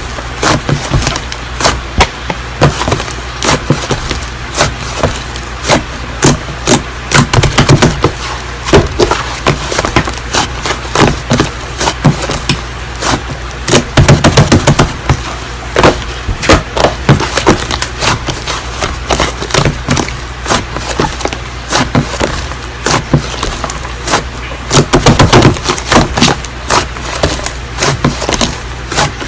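Slime being pressed and squished by hand, making rapid, irregular clicks and pops, with a few louder presses about halfway through and again near the end. A steady low hum runs underneath.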